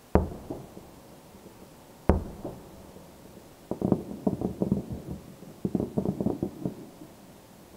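Distant fireworks shells bursting: two single bangs about two seconds apart, each with a short rumbling echo, then two rapid volleys of many bursts popping in quick succession.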